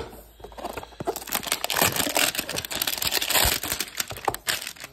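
A cardboard trading-card hanger box knocked down on a wooden table, then handled and rubbed, giving a dense, irregular crinkling and rustling for a few seconds.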